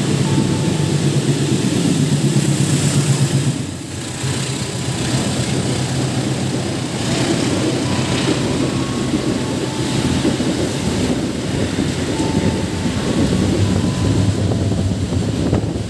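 A freight train passing in heavy rain: the CC206 diesel-electric locomotive's engine drones for the first few seconds, then a long string of container flat wagons rumbles and clatters past steadily.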